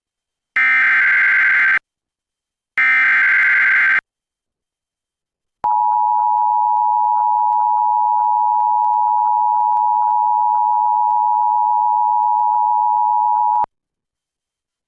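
Emergency Alert System header and attention signal. First come two short bursts of SAME digital header data, about a second each. Then, after a short gap, the steady two-tone EAS attention signal (853 and 960 Hz) holds for about eight seconds, announcing a severe thunderstorm warning.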